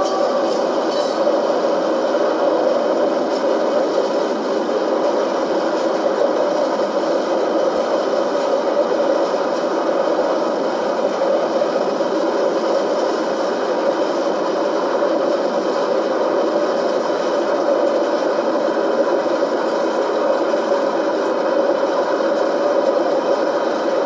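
Freight train's boxcars rolling past close by: a steady clatter and rumble of steel wheels on the rails.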